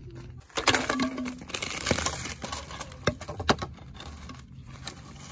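Bamboo poles being handled and shifted on ground strewn with dry leaves and grass: a crackling rustle broken by a few sharp knocks, the loudest about three and a half seconds in.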